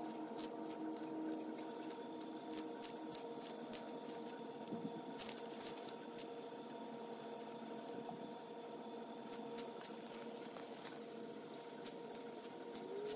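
Sulcata tortoise biting and crunching romaine lettuce: quick, irregular crisp clicks over a steady mechanical hum.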